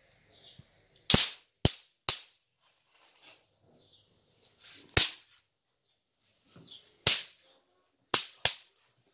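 An electric fly-swatter racket zapping a fly caught in its mesh: about seven loud, sharp snapping cracks at irregular intervals, as the charged grid arcs through the insect.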